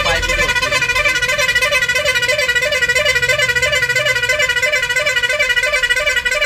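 Vehicle horn sounding continuously with a warbling, repeating tone that pulses about three or four times a second, over the low drone of a truck engine.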